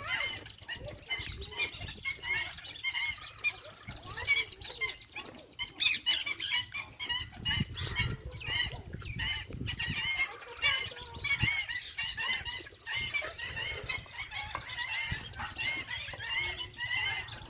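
Several birds calling at once in a squabble: a dense run of short, overlapping chirps and squawks, with some wing flapping.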